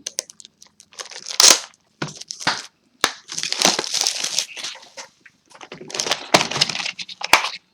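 Plastic and foil trading-card packaging crinkling and tearing in a run of short, crackly bursts as a booster box and its packs are opened.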